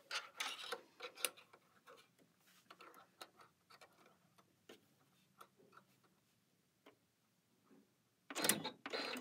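Faint, irregular small clicks and taps from hands fitting a snap-on rolled hem presser foot to a Janome Skyline S7 sewing machine and setting fabric under it, with no motor running. A louder rustling burst comes near the end.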